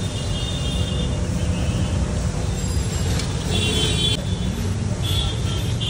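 Street traffic: a steady rumble of engines and road noise, with horns sounding briefly a few times.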